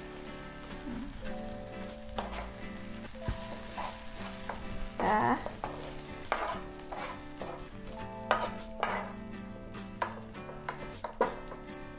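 Sambal bawang sizzling in hot oil in a pan just taken off the heat, stirred with a spatula that scrapes and knocks against the pan many times.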